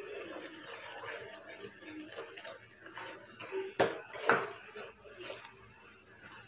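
Wooden spatula stirring rice flour into bubbling syrup in an aluminium wok, scraping the pan and knocking against it a few times about midway.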